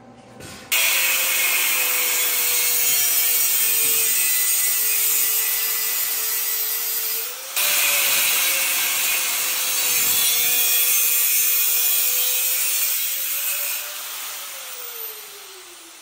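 Angle grinder with a cutoff wheel cutting through steel tubing: a loud, steady hiss of the disc in the metal over the motor's whine. It breaks off briefly about halfway and resumes, and near the end the trigger is released and the motor's pitch falls as the disc spins down.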